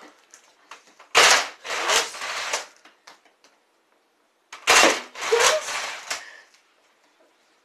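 Toy Nerf blaster being fired twice, about a second in and again near five seconds in. Each shot starts with a sharp snap and is followed by about a second of further knocks and rattling.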